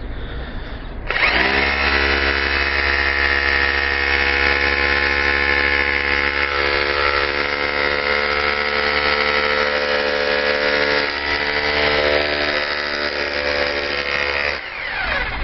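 Hammer drill fitted with a homemade rivet-setting bit, running steadily as it hammers a steel rivet down on a spangenhelm. It spins up about a second in and winds down near the end.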